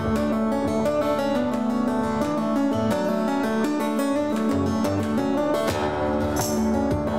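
Acoustic guitar music: a rapid stream of ringing notes over a steady low held note.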